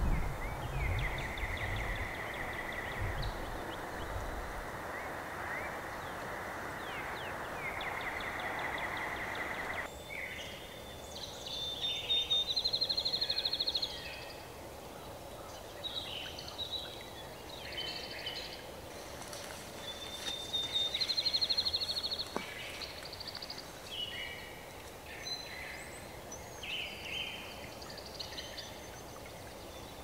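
Several songbirds singing in a dawn chorus: repeated trills lasting a second or two, with other short phrases in between. Under the first third runs a steady hiss that stops suddenly about ten seconds in.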